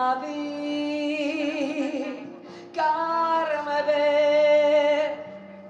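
A woman sings a French chanson live into a microphone in two long phrases, holding notes with a wide vibrato, over piano and acoustic guitar accompaniment.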